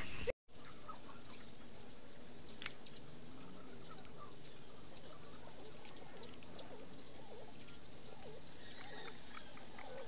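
A knife scraping the skin off a boiled ube over a bowl of water: faint scrapes, small clicks and drips over a steady background hiss. There is a split second of silence just after the start.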